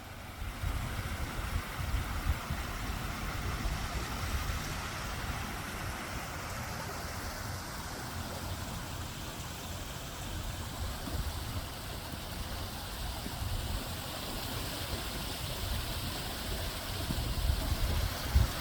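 Mountain stream water rushing and splashing over rocks, with a steady low rumble underneath.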